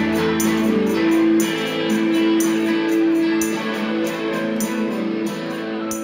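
Live indie band playing: ringing electric guitar chords over drums, with regular high percussion hits. The low bass notes drop out about a second in, and the music eases off slightly toward the end.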